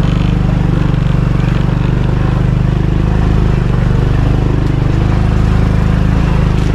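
Vehicle engine running steadily under load on a rough mountain track, its note shifting slightly a couple of times.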